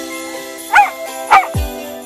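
A dog barking twice, short yips that rise and fall in pitch, over background music with a steady beat.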